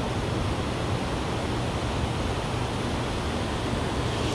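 Steady rush of flowing water in a dam's tailwater, an even hiss with a low rumble underneath.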